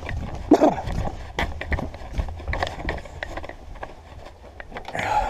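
Footsteps and the knocks and rustles of a hand-held camera being carried at a walk: irregular thuds over a low rumble.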